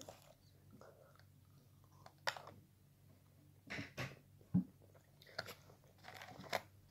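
Faint chewing and handling noises of a person eating filled chocolate seashells: a few scattered soft clicks and rustles, bunched in the second half.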